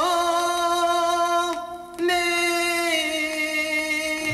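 Recorded vocal music: a singing voice holding long notes, each a second or two, with a brief drop just before two seconds in before the next note.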